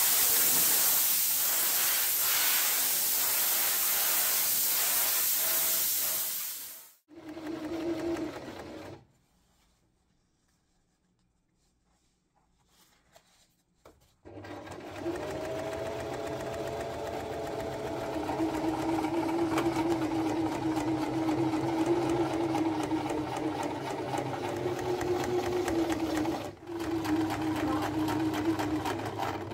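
A compressed-air spray gun hisses steadily as it sprays paint onto wicker for about seven seconds. An electric sewing machine then runs in a short burst, followed by a few seconds of near silence. The sewing machine then runs steadily through the rest, stitching fabric and piping, with a brief stop near the end.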